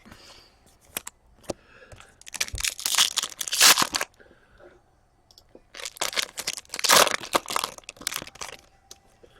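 A foil trading-card pack wrapper being torn open and crinkled, in two bursts of crackly tearing and rustling.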